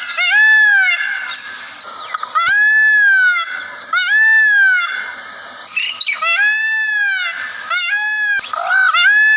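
Indian peafowl (peacock) giving its loud call, a string of about six short calls, each one rising and falling in pitch, repeated every second or two.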